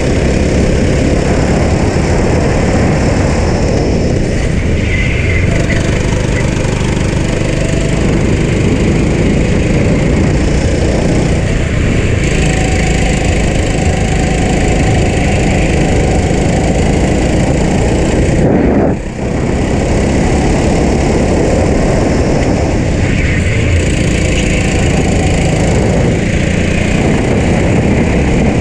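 Racing kart's engine running hard at race speed, heard from on board the kart under heavy wind and track noise. The sound drops briefly about two-thirds of the way through, then picks up again.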